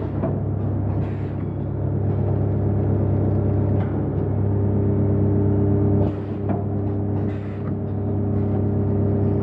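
Background music: a steady, sustained low drone with a few soft irregular hits.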